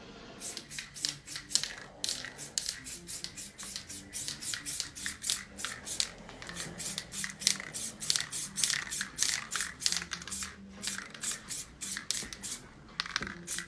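Aerosol spray-paint can sprayed through a stencil in quick short hisses, about four or five a second, with a brief pause about a second before the end.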